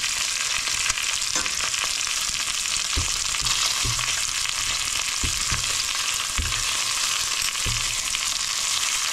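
Oil sizzling hard in a pan as food is stir-fried, a steady hiss, with the spatula knocking and scraping against the pan every second or so as it is stirred.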